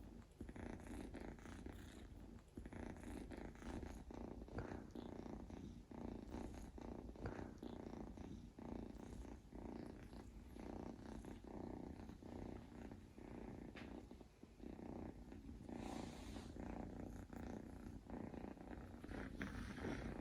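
A longhair Scottish Fold kitten snoring softly while asleep, a low buzzy rasp rising and falling with each breath.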